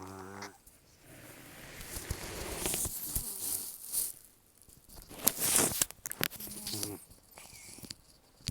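Elderly cat snoring with very rough, noisy nasal breathing. It opens with a short pitched snore, then hoarse, hissing breaths swell over a couple of seconds. Louder rasping breaths follow around the middle, and another brief snore comes near the end.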